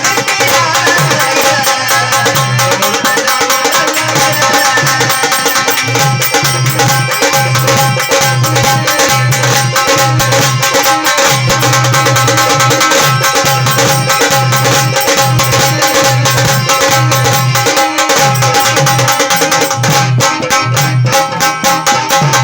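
Marathi gondhal devotional folk music: an even rhythm of hand-drum strokes over steady held tones, played continuously at a loud, constant level.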